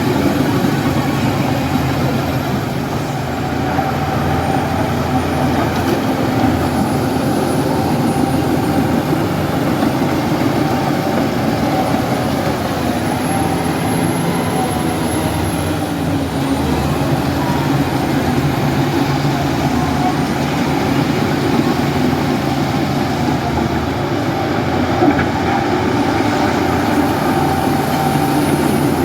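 Bulldozer's heavy diesel engine running steadily, a continuous loud drone with no breaks.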